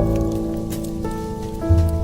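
Mellow jazz instrumental with held piano chords over a low bass line, and the scattered pops and crackles of a fire underneath.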